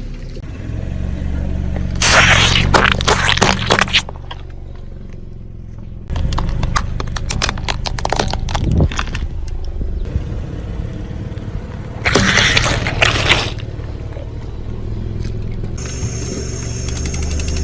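Car tyre rolling over and crushing brittle objects, with loud crunching and crackling in three bouts (around two seconds in, a run of sharp cracks from about six to nine seconds, and again around twelve seconds), over the low rumble of the idling car.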